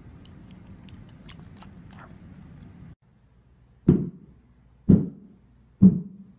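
A husky chewing a small treat, with a few faint crunches, then three heavy thumps about a second apart.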